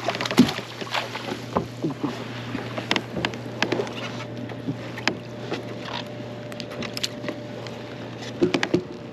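Scattered small clicks and knocks on a fishing kayak while a hooked fish is played, over a steady low hum.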